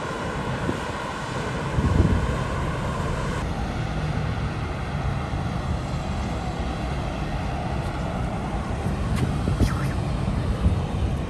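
Wind buffeting the microphone over a steady rumble of road and traffic noise while riding along on a motorbike, with a few short knocks.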